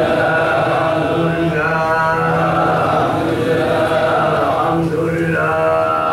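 Voice chanting an Islamic religious recitation, likely dhikr, in long held notes, with short breaks twice.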